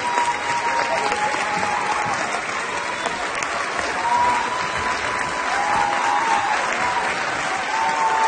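Large audience applauding, a steady dense clapping, with a few voices calling out over it.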